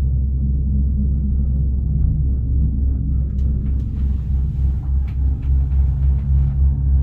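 A steady, loud low-pitched mechanical drone, a rumble with a constant hum.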